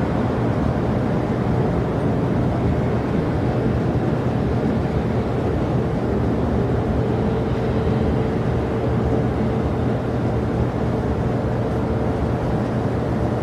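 Jet airliner engines running steadily, a low rumble with a faint steady whine that comes in about halfway through.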